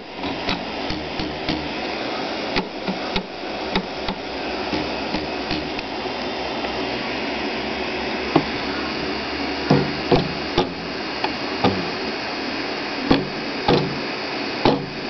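Taut rubber timing belts on a RepRap Prusa 3D printer plucked by finger again and again, each pluck a short low twang, over a steady hiss. The plucks test how tightly the belts are tensioned, and they grow louder in the second half.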